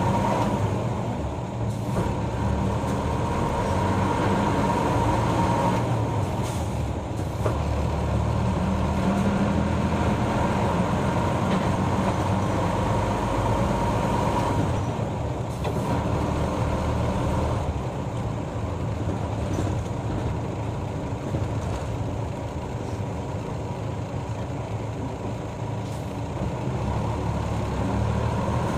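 Diesel route bus running along the road, heard from inside the cabin. The engine note changes several times as it speeds up, shifts gear and eases off.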